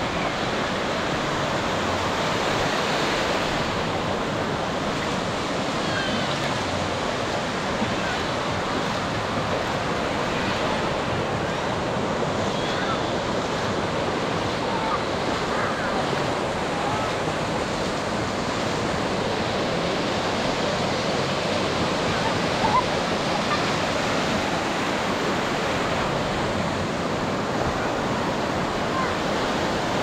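Ocean surf breaking and washing up the sand in a steady, unbroken rush, with faint voices of bathers here and there.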